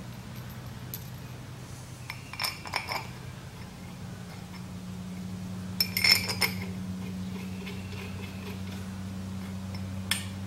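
Small metal cap screws clinking against each other and against the adaptor plate as they are picked up and started by hand into the motor face. The clinks come in three short clusters, the loudest about six seconds in, over a steady low hum.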